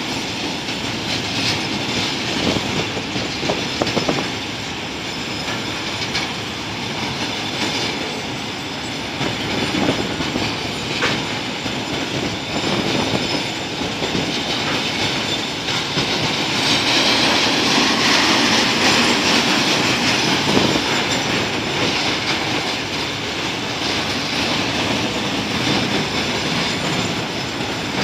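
Freight train of flat wagons loaded with steel coils rolling past, wheels rumbling and clattering on the rails. For a few seconds past the middle the wheel noise gets louder and shriller.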